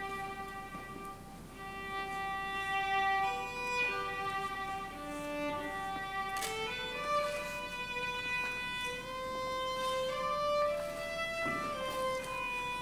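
Music: a slow melody on a bowed string instrument, with long held notes, some of them sliding from one pitch to the next.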